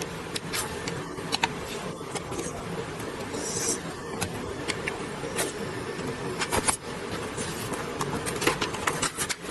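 Automatic high-frequency welding machine running: a steady hum with irregular sharp clicks and knocks, and a short hiss about three and a half seconds in.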